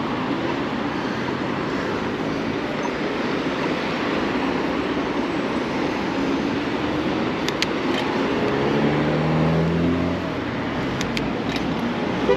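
City road traffic heard from a moving bicycle, a steady rush of road and wind noise. A nearby vehicle engine swells and rises slightly in pitch about eight seconds in, then fades.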